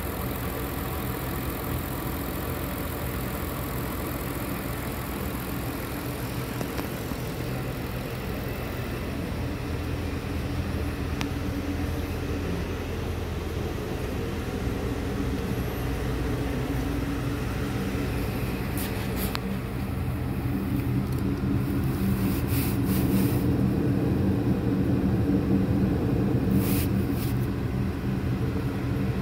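2003 Honda Accord's 3.0-litre VTEC V6 idling steadily, getting louder in the second half. There are a few short clicks near the end.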